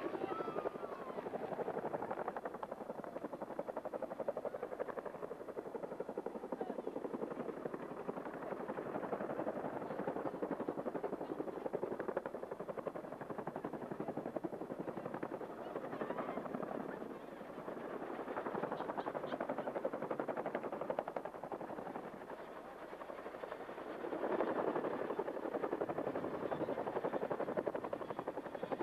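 Helicopter flying, its rotor making a steady rapid chop that grows louder about three quarters of the way through.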